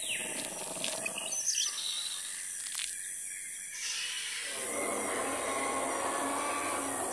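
Nature ambience of birds chirping over a steady high insect drone. About four and a half seconds in, a fuller, lower noise swells in and holds.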